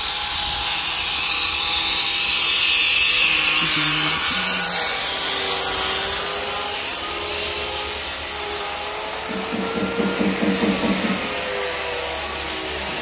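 Power tool running steadily on a building site: a loud, even hiss, with a rapid rattle for a couple of seconds about nine seconds in.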